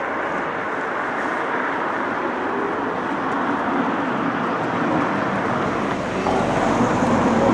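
Steady outdoor background noise, a low rushing hum with no distinct events, growing slightly louder and deeper near the end.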